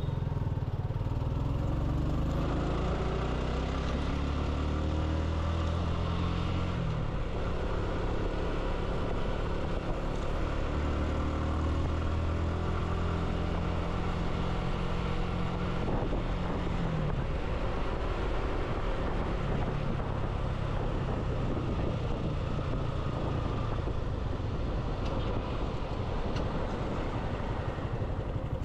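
Motorcycle engine running under way, its pitch climbing and then dropping sharply, once about a quarter of the way in and again just past the middle, over steady wind and road noise.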